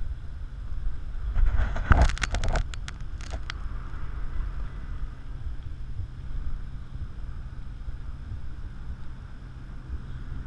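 Wind buffeting an action camera's microphone under a parasail, a steady low rumble. About two seconds in there is a short cluster of clicks and rustles.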